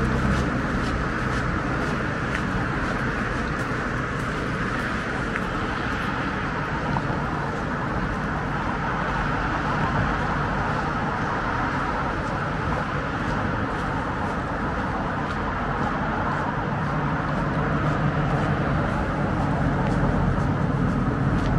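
Steady road traffic noise: cars running along the street below, heard as an even wash of sound.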